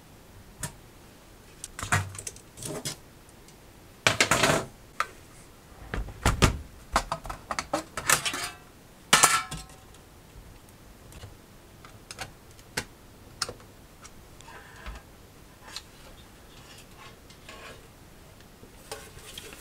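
Sheet-metal and plastic parts of a disassembled LCD monitor being handled and set down on a wooden workbench: irregular clanks, clicks and knocks, busiest in the first half and lighter later.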